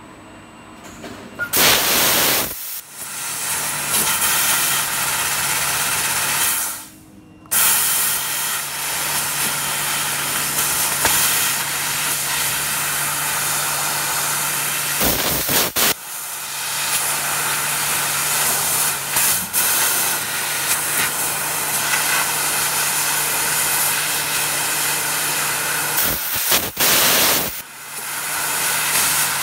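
Fiber laser cutting machine cutting 3 mm stainless steel: a loud, steady hiss of assist gas blowing through the cutting nozzle, over a low steady hum. The hiss drops out for about a second near the quarter mark and surges into short louder blasts a few times.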